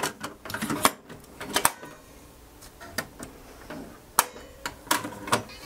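Sharp plastic clicks from a Harman Kardon DC520 cassette deck as a cassette is loaded into its second transport and the controls and tape mechanism are worked: about six separate clicks over a few seconds.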